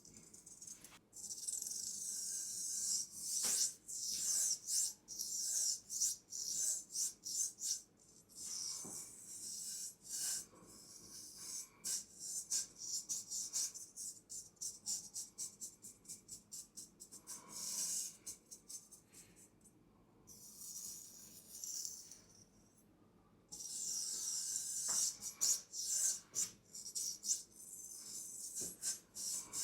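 Straight razor working in quick rhythmic strokes in the traditional 'jumping three blades' shaving technique: a fast run of crisp rasping scrapes and light ticks, broken by a short pause about two-thirds through.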